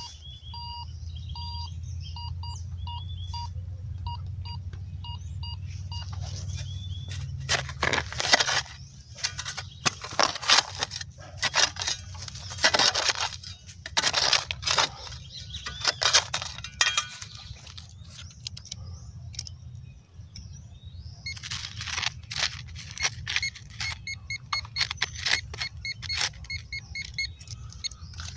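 Minelab Go-Find 44 metal detector giving a run of short repeated beeps as its coil passes over a buried target. A hand shovel then digs into grassy soil with sharp crunches and scrapes, and the detector beeps again near the end as the spot is rechecked.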